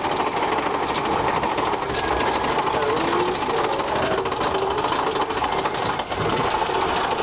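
Big Thunder Mountain Railroad mine-train roller coaster running along its track, a continuous rapid clatter and rumble of the train's wheels and cars heard from on board.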